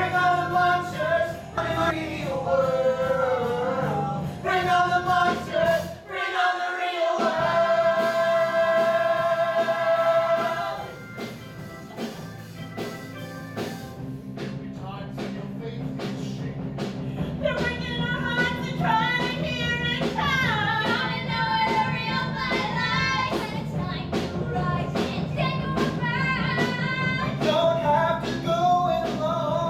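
Musical-theatre song: voices singing over instrumental accompaniment, with a long held note about seven seconds in, a quieter stretch with the accompaniment carrying on, then singing again in the last third.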